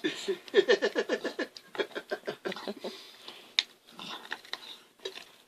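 A dog making a quick run of short, falling whine-like vocal sounds for about the first second and a half, then quieter snuffly noises with an occasional sharp click.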